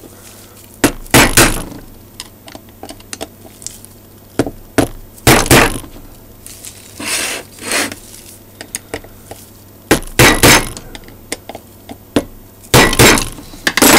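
Hammer striking a screwdriver set in the screws of a rotator's motor mounting plate to shock them loose. The sharp metallic blows come in short clusters every few seconds, with small tool clinks and rattles between them.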